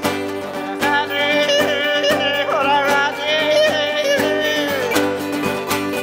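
Two acoustic guitars playing a folk song together, with a woman's wordless sung melody over them, wavering and sliding between notes from about a second in until near the end.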